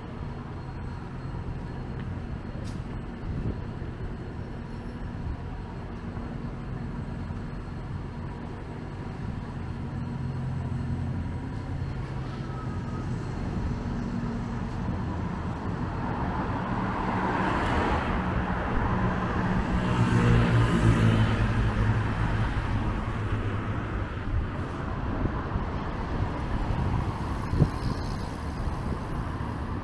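City street traffic: a steady rumble of car and bus engines going by, with one vehicle passing close and louder about two-thirds of the way through.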